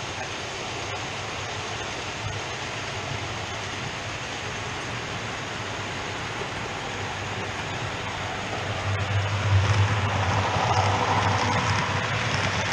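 OO gauge model trains running on the layout: a steady rolling hiss and rattle of wheels on track, growing louder about nine seconds in with a low motor hum as a train of model tanker wagons passes close by.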